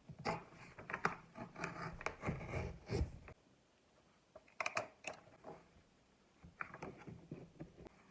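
Small objects being handled at close range, a run of rubbing and scraping with light knocks and clicks, coming in three bursts.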